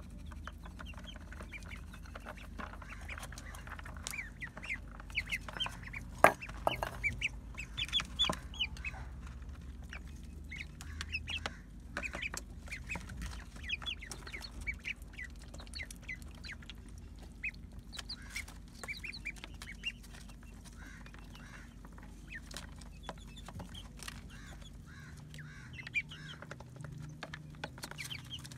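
Chickens clucking while they peck cooked rice from a plastic tub, with many quick taps of beaks on the plastic and a sharp knock about six seconds in, over a steady low hum.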